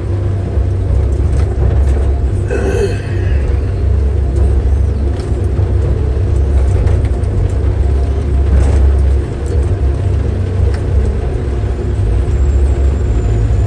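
Heavy forestry machine's diesel engine running steadily, heard from inside its cab, with heavy rain on the cab glass. A short pitched sound cuts in briefly about three seconds in.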